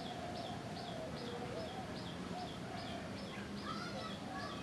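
Several birds calling in an aviary: a fast, even series of short high chirps, about three a second, over lower, rising-and-falling calls repeated again and again, with a few extra chirps near the end.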